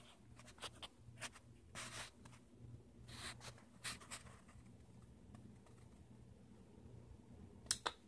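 Faint, light footsteps on a wooden floor: a handful of quick taps and scuffs in the first four seconds, then quiet, then two sharp clicks near the end.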